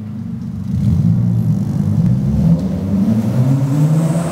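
Vauxhall Astra Mk4 with an aftermarket 'scooby' exhaust pulling away hard from idle. The exhaust note gets louder about half a second in, then climbs steadily in pitch as the car accelerates. It is loudest near the end as the car passes close.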